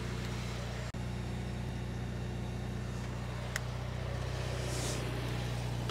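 A steady low mechanical hum from a running machine, with a single light click about three and a half seconds in and a short hiss near the end.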